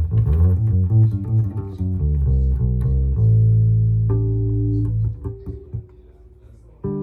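Electric bass guitar played through an amp: a quick run of plucked low notes, then a long held low note about three seconds in with a higher note over it, dying away before a fresh note near the end.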